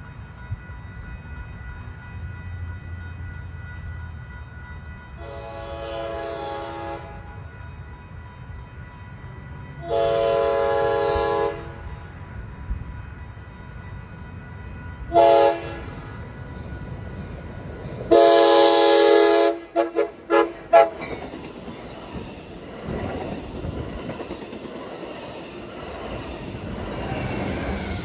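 Locomotive horn blowing the grade-crossing signal as a train approaches: two long blasts, a short one and a long one, the first faint and the rest loud, then three quick toots. A steady rushing noise follows.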